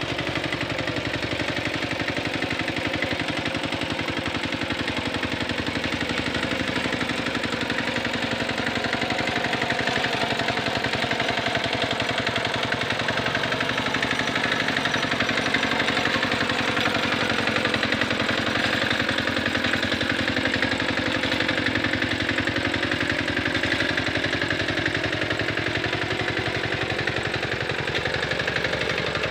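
Small engine of a Quick Capung Metal two-wheel hand tractor running steadily under load as it drags a harrow through a flooded rice paddy.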